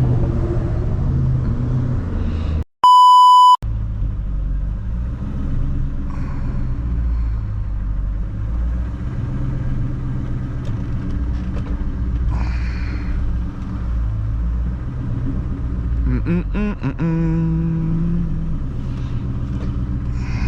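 2003 Mustang SVT Cobra's supercharged V8 running steadily under way, a low rumble with road noise. About three seconds in, the car sound cuts out for about a second under a loud, steady beep tone.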